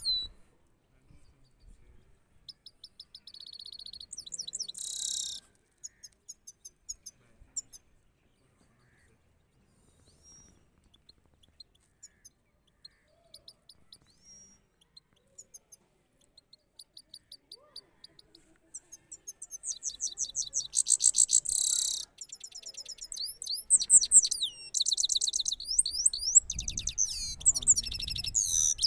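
European goldfinch song: high, rapid twittering and rolling trills. It comes in short bursts at first, thins to scattered single notes, then becomes a dense, near-continuous, louder song from about twenty seconds in.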